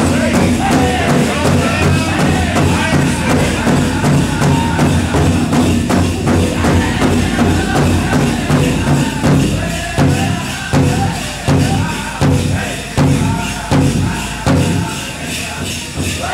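Powwow drum group singing over a steady beat on a large drum. In the second half the drumbeats stand out sharply, about one and a half a second.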